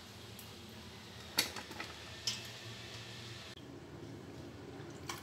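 A few short clicks and soft knocks as wet pieces of cut wild eggplant are handled in a steel bowl and set down on a plate. The sharpest knock comes about one and a half seconds in.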